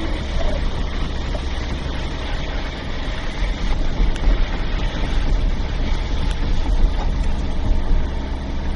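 Car driving along a road, heard from inside the car: steady engine and tyre noise with a strong low rumble that flutters in level.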